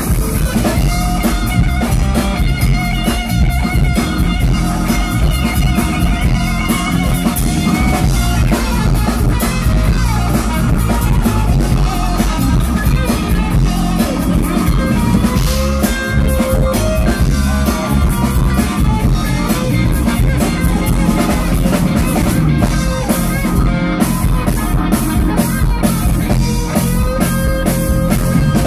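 Live band playing a rock-soul song: electric guitar and drum kit with singing, loud and steady.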